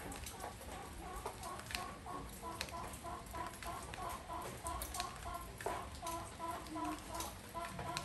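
Rain falling on a porch, with single drops clicking sharply, while a bird calls in rapid runs of short notes, several a second.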